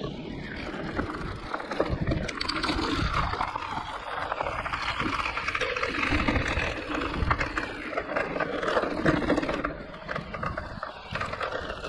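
Mountain bike riding over a rough, loose trail: tyre noise with many small clicks, knocks and rattles from the bike.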